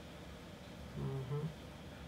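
A short murmured voice sound, about half a second long and about a second in, over faint steady room hiss.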